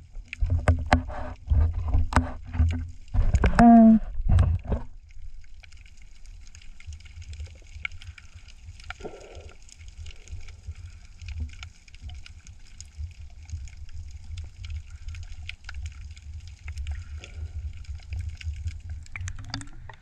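Muffled underwater sound heard through an action camera's waterproof housing: a run of knocks and splashy water noise in the first five seconds, then a steady low rumble with faint crackling.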